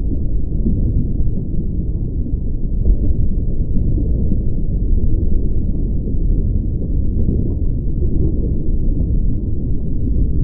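Steady, loud, deep rumble with nothing in the higher range, heavily muffled throughout.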